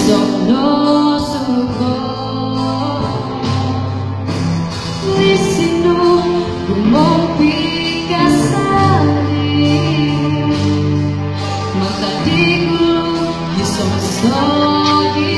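A singer performing a song over instrumental backing music, in long held phrases with a steady bass underneath.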